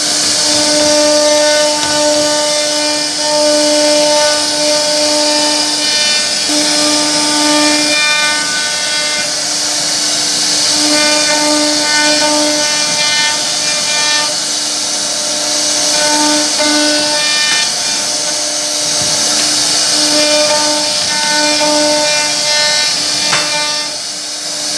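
CNC wood router carving a wooden panel: the spindle whines at a steady pitch that keeps fading and returning, over a continuous hiss from the bit cutting the wood.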